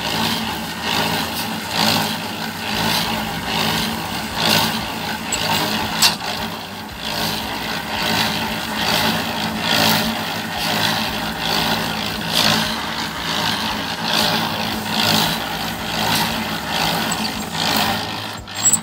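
Concrete mixer running with a steady hum, its drum turning a batch of sand, gravel and cement, which swishes round about once a second; shovelfuls of gravel are tipped into the drum.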